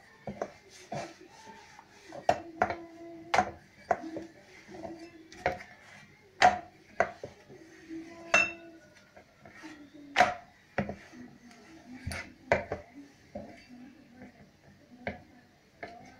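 Steel rolling pin rolling out chapati dough on a round metal board, clacking sharply against the metal at irregular moments about once or twice a second, with a low ringing rumble as it rolls between the clacks.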